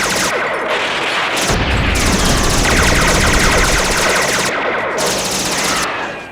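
Rapid, sustained machine-gun fire in anime sound-effect style. A deep boom joins in about a second and a half in, and the firing fades out near the end.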